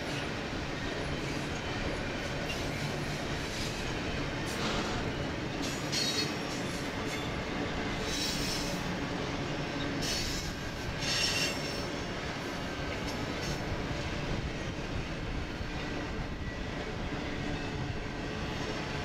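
Double-stack intermodal freight train rolling past, a steady rumble of steel wheels on rail, broken by several brief high-pitched wheel squeals in the middle.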